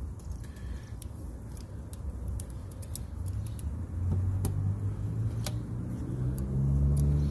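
Sharp metal clicks of folding multi-tools being handled and set down on a wooden board, over a low rumble that grows louder in the second half.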